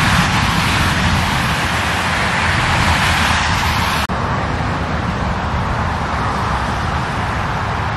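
Steady noise of motorway traffic from cars passing at speed, with a sudden short break about four seconds in.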